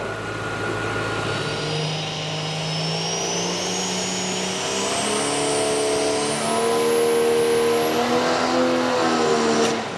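Diesel pickup truck pulling a sled under full throttle, its engine running hard at high revs with a high turbo whistle that climbs steadily in pitch. The engine lets off abruptly near the end.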